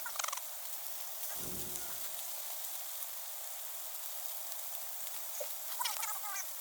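Bacon sizzling steadily in a frying pan.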